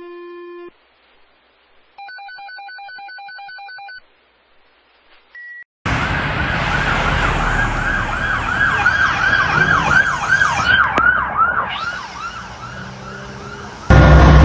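Electronic siren of a fire chief's Ford Explorer Police Interceptor Utility running in a fast yelp, sweeping about three times a second over road noise, growing louder and then fading as it goes by.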